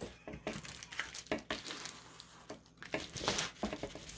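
Plastic packaging crinkling and crackling in irregular bursts as it is handled, with a quieter pause midway.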